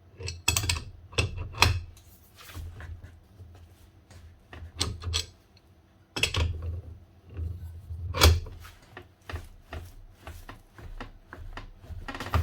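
Irregular metallic clicks, knocks and short scrapes of hand tools tightening a threaded fastening on a rotary hammer's internal parts, held in a vise and fitted with a Nord-Lock washer.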